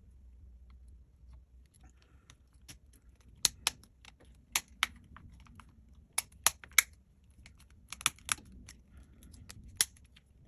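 Sharp, short clicks and taps, often two or three in quick succession, from tools and plastic phone parts being handled and pressed into place as a Samsung Galaxy A70 is put back together.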